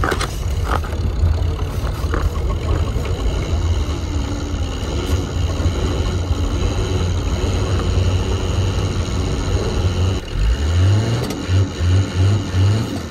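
Steady low rumble inside the cab of a diesel camper van being towed to get it started; about ten and a half seconds in a note rises, followed by four short pulses. The owner suspects dead glow plugs behind the failed cold start.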